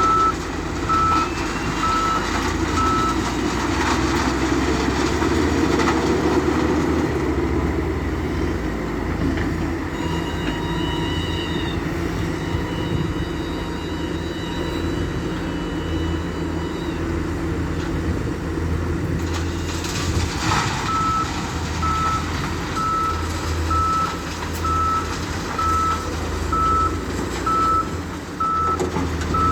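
Heavy diesel construction machinery running steadily under load. A reversing alarm beeps at an even pace, once at the start and again from about two-thirds of the way through.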